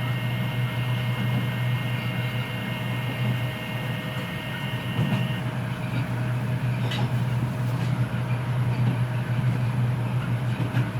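Kita-Osaka Kyuko 9000-series train running, heard from the car floor over the motor: a steady low hum from the permanent-magnet synchronous motors and running gear, with a steady high whine from the Toshiba IGBT VVVF inverter that stops about halfway through. A couple of faint clicks come later.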